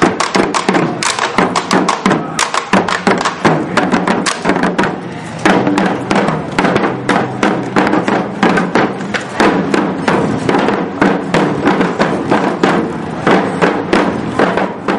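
A group of small drums slung at the players' waists, beaten with sticks in a quick, steady marching rhythm, with a brief lull about five seconds in.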